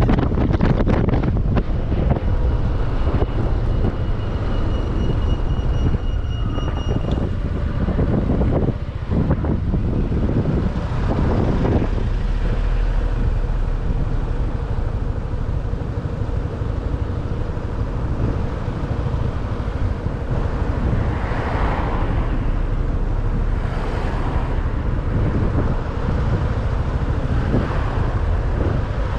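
Wind buffeting the microphone on a moving motorbike, a loud, steady rumble, with the bike's engine and road noise running faintly underneath.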